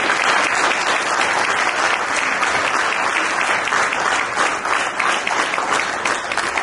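Audience applauding: many people clapping together, tapering off near the end.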